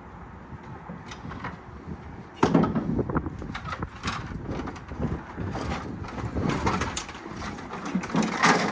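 Motorcycle body panels being handled and tossed about: a run of irregular knocks and clatters that starts suddenly about two and a half seconds in.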